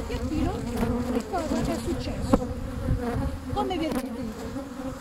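Honeybees buzzing around an open hive: a steady hum with individual bees flying close past, their buzz rising and falling in pitch. A single sharp tap a little over two seconds in.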